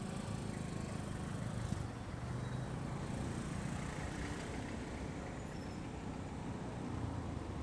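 Motorcycle engine running at low speed in slow city traffic, heard from the pillion seat, mixed with the noise of the surrounding vehicles. A brief knock comes about two seconds in.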